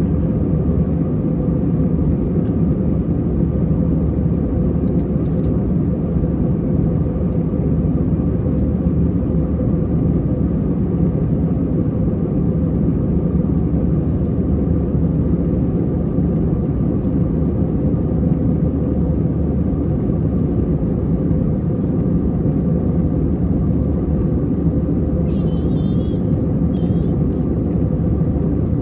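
Jet airliner cabin noise in flight: the steady rush of engines and airflow, with a faint steady hum over it. A few faint clicks and, near the end, a brief faint wavering high tone.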